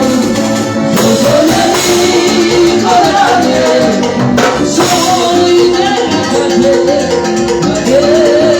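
Latin tropical dance music, a salsa-style band with maracas and a melodic line, playing at a steady beat.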